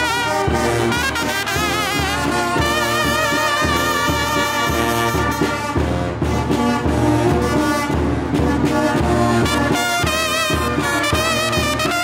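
Small wind band of trumpet, clarinet and alto saxophone with a bass drum playing a jarabe from Guerrero. The horns carry a melody with a wide vibrato over a steady bass-drum beat.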